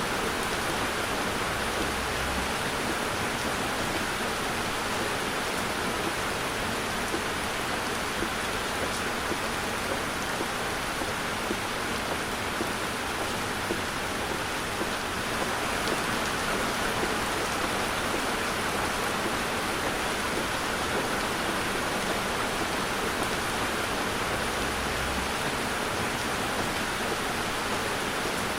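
Heavy rain falling on a car, a dense, even hiss.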